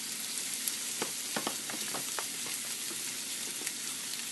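Onions, wood ear mushrooms and jicama sizzling steadily in hot oil as they are stir-fried, with a few light clicks of the stirring utensil against the pan in the first half.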